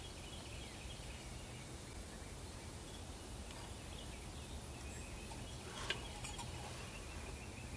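Quiet, steady low background hum with a single faint click near the end.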